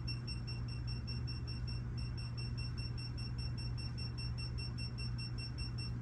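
Digital torque wrench beeping rapidly, about five short high beeps a second, as a torque-to-yield cylinder head bolt is pulled up toward its 74 ft-lb step. A steady low hum runs underneath.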